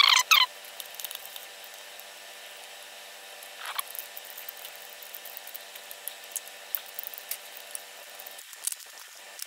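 Chain-breaker tool being fitted and screwed onto an engine's timing chain: small metal clicks and taps. Two sharp squeaks come right at the start and a fainter squeak about four seconds in.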